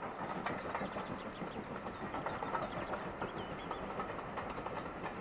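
Steam-hauled train running: a steady, even noise, with faint high chirps a second or two in.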